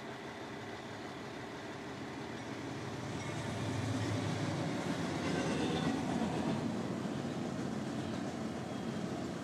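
CN diesel freight train passing through a level crossing: the locomotives' rumble swells as they go by a few seconds in, followed by the steady rolling noise of double-stacked container cars.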